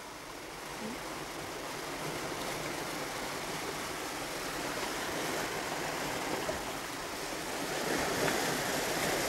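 Sea surf: waves breaking and washing in a steady noise that slowly grows louder toward the end.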